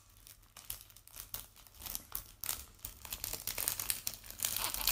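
Crinkling and rustling of something being handled close to the microphone: irregular soft crackles, sparse at first and denser and louder in the second half.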